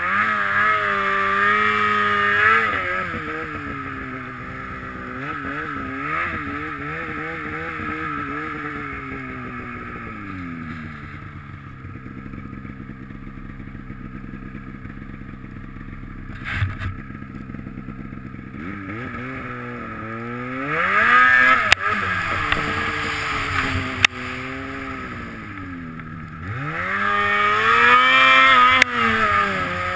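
Polaris snowmobile engine revving up and down as the sled rides through deep powder, easing to lower revs through the middle and then throttled up hard twice in the second half. A few sharp knocks cut through, near the middle and about two-thirds through.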